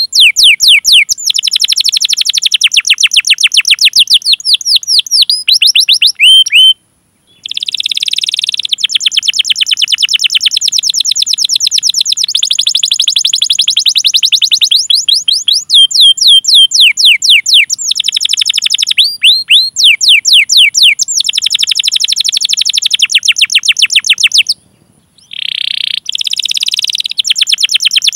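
Domestic canary singing long, rapid rolling trills of repeated falling 'cuit cuit' notes. The song breaks off briefly twice, about a third of the way in and near the end, and picks up again each time with a short rasping phrase.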